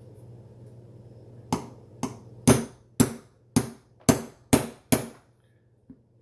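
A hammer strikes a pin punch eight times, about two blows a second, each with a short ring, driving a tight pin out of a Mossberg 500 shotgun bolt.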